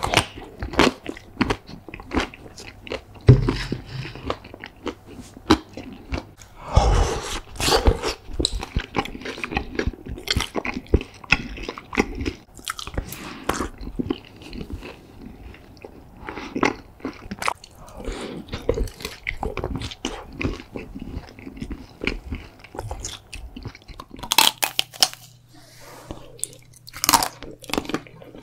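Close-miked eating of chocolate-coated ice cream bars: repeated crunchy bites through the hard chocolate coating, then chewing.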